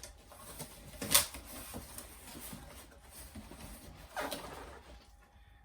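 Cardboard box and packaging being opened and handled: light scratching and rustling, a sharp snap about a second in and a brief rasp around four seconds in.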